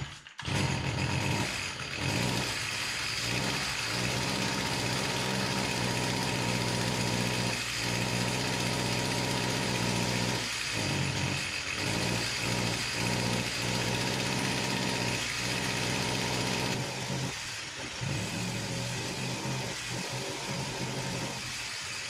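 Stihl FS55 string trimmer's small two-stroke engine catches from a pull start and runs, with several brief dips and stumbles, unable to rev up. The engine is losing power, and the cause turns out to be a plugged spark arrestor in the exhaust.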